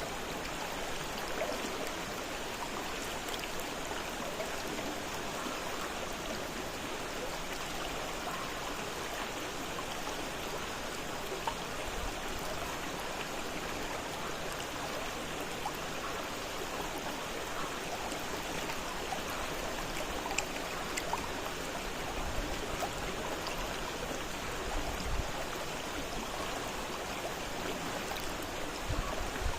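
Fast-flowing river water, a steady, even rushing wash.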